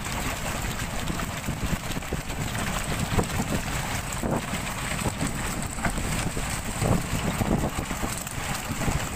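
Wind buffeting the microphone, a steady rough rumble with no clear tone.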